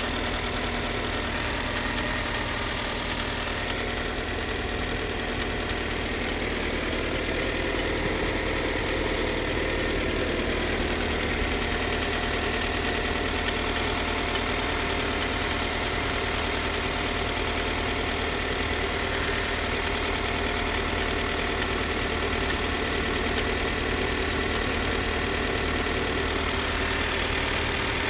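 Hyundai Santa Fe 2.4 engine idling cold with a rapid, steady metallic tapping from the timing-belt area. The owner says the tapping goes away once the engine warms up, and does not know the cause.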